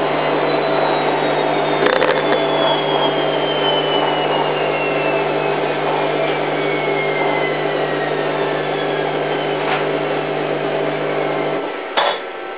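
Hoover Time Manager H130E washing machine at the end of its spin, the drum coasting down with a whine that falls slowly in pitch over a steady low hum. Near the end the hum cuts off and there is a short click.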